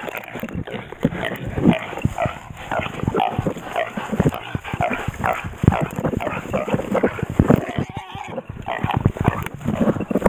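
A hunting dog struggling with a young wild boar in the undergrowth: a fast, uneven run of animal cries, grunts and growls.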